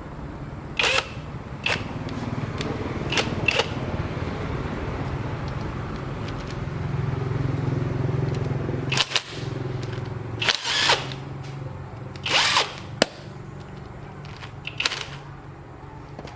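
A motor-driven machine hums steadily, broken by about eight short, sharp metallic clicks and clanks, some of which ring on briefly.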